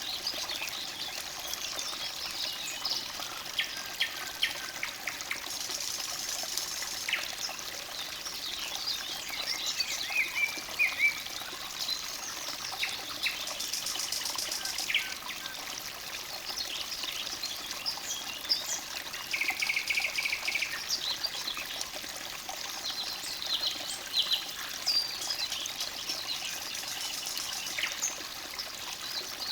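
Forest stream trickling steadily, with several songbirds chirping and singing over it throughout, including a short buzzy trill about twenty seconds in.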